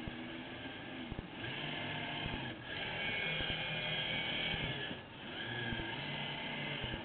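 Drive motor of a 78-inch radio-controlled Gato submarine model whirring under way, with water washing along the hull. The whir swells and eases in surges, dipping briefly about two and a half seconds and five seconds in.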